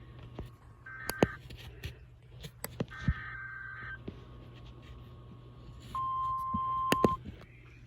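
Emergency Alert System broadcast over NOAA Weather Radio: two short screeching bursts of SAME digital header data, with crackles of radio static, then the steady 1050 Hz warning alarm tone sounding for just over a second near the end, signalling that a warning is about to be read. A low hum runs underneath.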